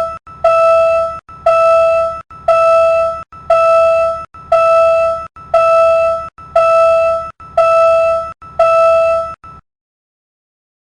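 Railroad crossing warning signal sounding a steady, loud ringing tone about once a second, each note held most of a second. The signal cuts off suddenly near the end.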